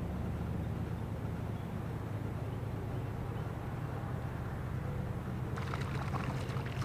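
Spinning reel cranked in against a hooked fish, giving a run of irregular sharp clicks from about five and a half seconds in, over a steady low outdoor rumble.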